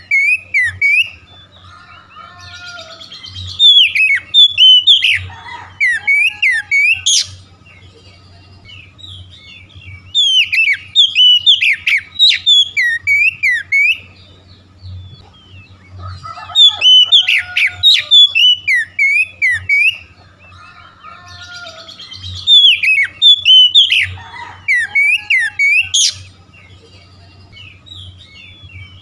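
Oriental magpie-robin (kacer) singing: loud bursts of rapid, varied whistled notes every few seconds, with quieter twittering between them.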